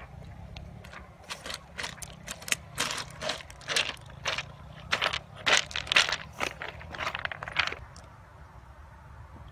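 Footsteps crunching and clacking over loose river cobbles, about two to three steps a second, stopping near the end.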